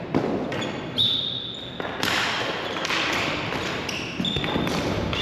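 Ball hockey game play: a few sharp knocks of sticks and ball, a couple of short high-pitched squeaks, and a busier wash of noise with voices in the second half.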